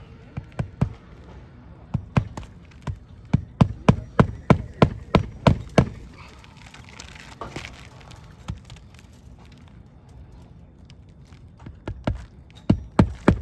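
Hammer blows on an asphalt-shingle roof, in quick runs of about two to three strikes a second, starting about two seconds in and again near the end: nails being driven to fix a replacement shingle.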